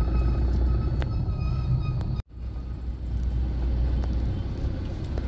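Steady low rumble of a car driving on the road. The sound cuts out abruptly for a moment about two seconds in, then the rumble resumes.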